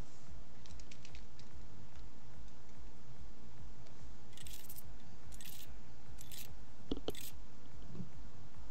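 A pen stylus scratching across a drawing tablet in four short strokes, about a second apart, with a small click near the last, over a steady low hum.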